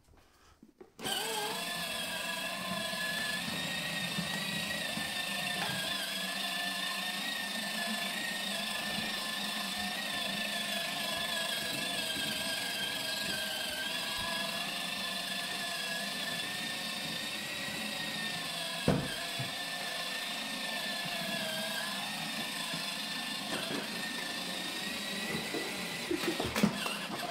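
Electric motor of a battery-powered children's ride-on toy motorbike running, a steady whine that starts about a second in, with one knock about two thirds of the way through.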